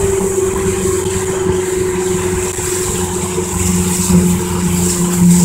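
Evinrude 115 two-stroke outboard motor running steadily as the boat cruises, over a steady rush of wind and water; its pitch sags slightly, and it grows louder about four seconds in.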